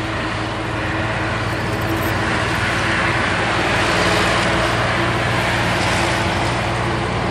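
Truck cab at highway speed: a steady drone of engine hum and road noise, swelling slightly midway.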